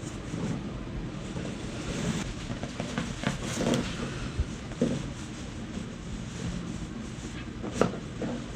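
Joints popping during a chiropractic adjustment: a few short, sharp cracks, the loudest near the end, over a steady rustle of clothing and body movement.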